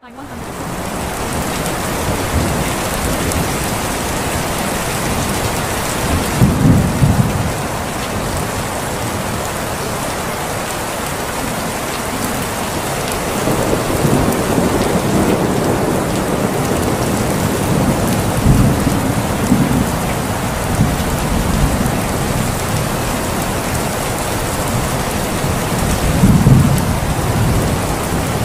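Steady heavy rain falling, with several low rolls of thunder that swell and fade. The loudest thunder comes near the end.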